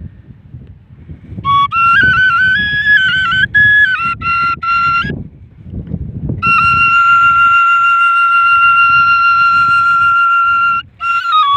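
A flute plays a short phrase of stepped, ornamented high notes, then holds one long steady note for about four seconds before a brief closing turn. A low rumbling noise sits underneath throughout.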